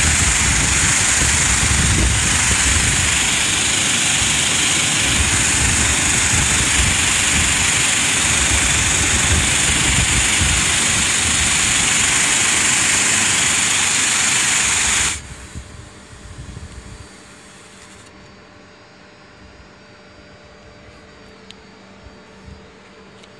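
High-pressure water jet spraying onto LED floodlights and wet asphalt in an IP66 powerful-water-jet test: a loud steady hiss with a machine drone underneath. It cuts off abruptly about fifteen seconds in, leaving a faint steady hum.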